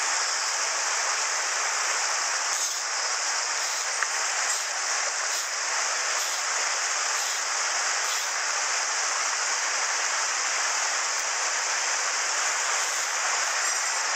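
Shallow mountain headwater stream flowing over rocks and small cascades: a steady, even rush of water.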